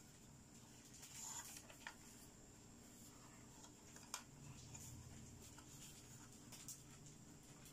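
Faint handling of a hard plastic hippo dentist toy: soft rubbing and a few light clicks and taps as it is turned over in the hands, the sharpest click about four seconds in.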